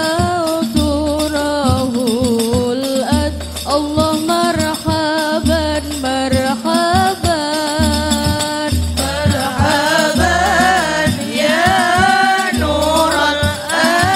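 A girl singing an Islamic devotional song (sholawat) into a microphone, accompanied by a rebana frame-drum ensemble, with a deep low drum beat repeating about every second and a half under the melody.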